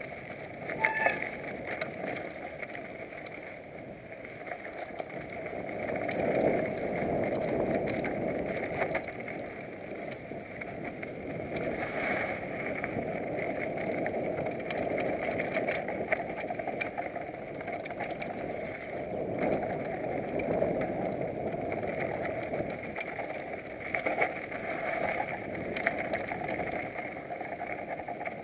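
Mountain bike riding down a dirt downhill trail: a steady rumble of tyres rolling over dirt, with frequent rattles and knocks as the bike goes over bumps.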